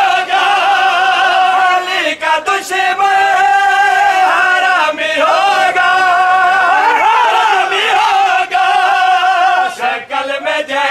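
A crowd of men chanting a Shia mourning lament (nauha) together, in long held notes with a few short breaks for breath.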